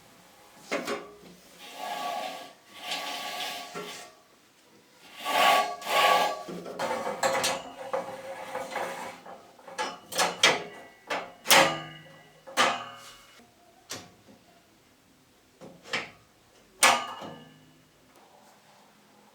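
Cleaning sounds on wooden furniture: a few seconds of rubbing and scraping on wood, then a run of sharp knocks and clacks as things are set down or a drawer is moved, with two louder knocks near the end.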